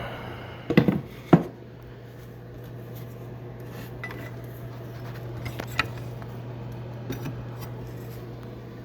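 A few sharp knocks and clinks, the loudest pair about a second in and fainter ones later, over a steady low hum.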